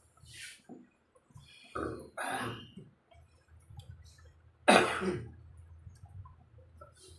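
A person clearing their throat and coughing in short bursts, with the loudest, sharpest cough just before five seconds in.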